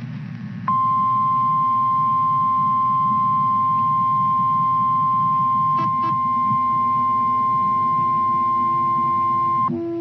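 Emergency alert attention tone: one steady pure tone just above 1 kHz, the 1050 Hz NOAA Weather Radio warning alarm, starting about a second in and held for about nine seconds before cutting off, over a low static hiss. It signals that a weather warning broadcast is about to begin.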